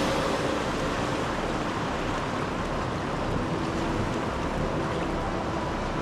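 Ocean surf: a steady, even rush of waves breaking on the beach.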